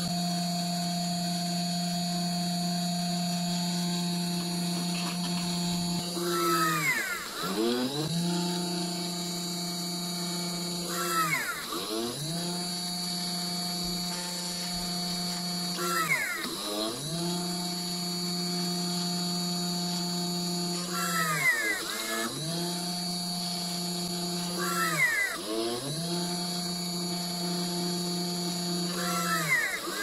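Small DC-motor PCB drill on a stand running steadily while drilling component holes in a printed circuit board. About every four to five seconds, six times in all, its pitch drops sharply as the bit is pushed through the board, then comes back up.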